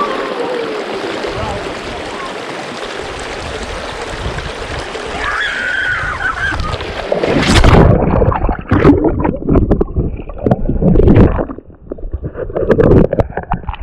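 Shallow river water rushing steadily over rocks. From about halfway in, loud irregular splashing and knocking as someone wades through the water and the microphone is jostled.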